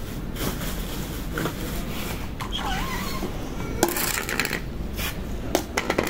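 Plastic plates set down on a tiled floor as cat food is put out: scattered clicks and light clatter, with a dense rattling burst about four seconds in and a few quick ticks near the end.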